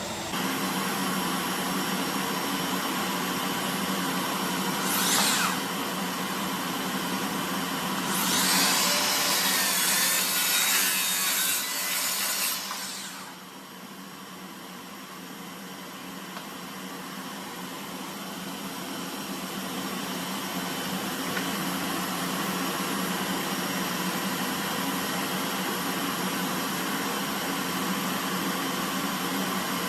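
Power saw cutting a wooden board, with a brief cut about five seconds in and a longer cut of about four seconds from about eight seconds in, over a steady machine hum that continues throughout.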